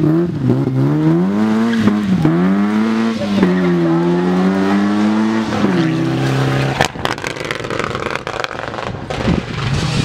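Rally car's engine revving hard as it accelerates, its pitch climbing and then dropping at each gear change several times. About seven seconds in it gives way suddenly to a rougher, noisier car sound with a couple of sharp cracks.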